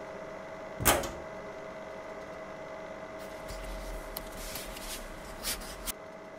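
A locker door knocks shut once, sharply, about a second in, over a steady room hum. From about halfway there is soft rustling, with a couple of light clicks near the end.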